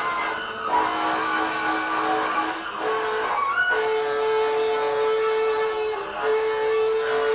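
Free-improvised noise music from two saxophones and an electric guitar: a dense, harsh wall of sound with long held notes. About three seconds in, the held note steps up in pitch and is sustained, with a brief break near the end.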